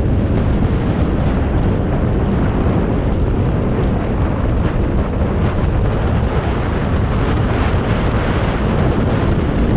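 Wind buffeting the microphone of a camera on the move: a loud, steady rush heaviest in the low end, with no engine note standing out.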